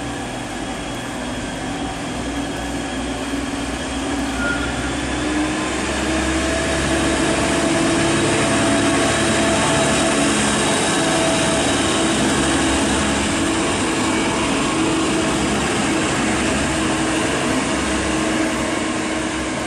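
DB class 612 tilting diesel multiple unit running, with a steady engine drone. It grows louder over the first several seconds, holds steady, then eases off near the end.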